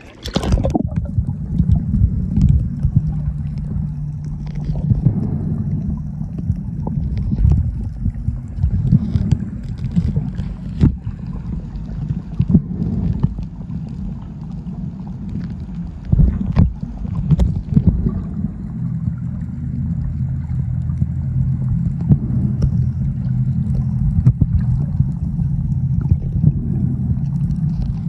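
Underwater sound picked up by a submerged phone: a muffled, continuous low rumble with scattered clicks and knocks and a steady low hum. It starts with a splash as the phone goes under.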